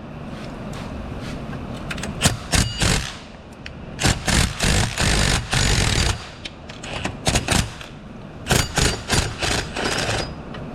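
A power tool driving a socket on a U-joint and two 12-inch extensions, run in four bursts, the longest about two seconds in the middle, as it spins out the long 14 mm bolt holding the alternator.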